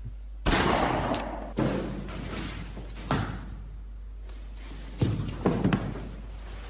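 Heavy thuds and slams from a film soundtrack: the loudest comes about half a second in and dies away over about a second. Further thuds and knocks follow a second later, near three seconds, and a cluster around five seconds in.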